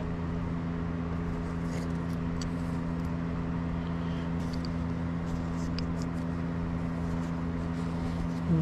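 A steady low machine hum with a few fixed pitches, over which faint light ticks and rubs come and go as a small injector part is wiped clean and handled.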